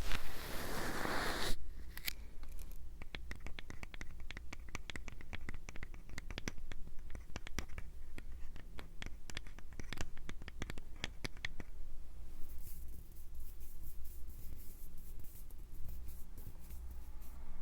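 ASMR triggers made close to a microphone: a brief rustle, then a long run of small quick scratching clicks, then a soft faint rustling from about twelve seconds in.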